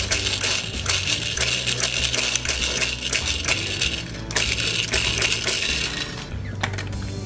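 Plastic toy washing-machine candy kit being spun by hand to mix the candy powder and water: a fast, continuous plastic clicking and rattling that pauses briefly about four seconds in, then starts again.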